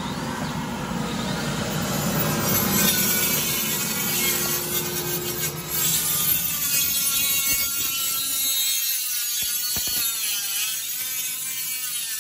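Milwaukee Fuel cordless compact cut-off saw cutting into a floor. Its whine dips and recovers as the blade loads up in the cut near the end.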